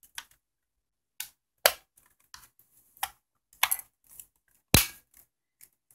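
The plastic front and back case halves of a TI-83 Plus calculator being pressed and snapped together: a series of sharp clicks as the clips catch, the loudest about a second and a half in and near the end.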